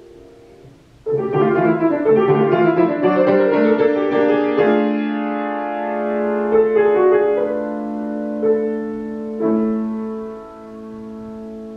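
Grand piano played: a quiet held chord, then about a second in a sudden loud flurry of fast notes, settling about five seconds in into sustained chords over a held bass note, with two accented chords near the end before the sound dies away.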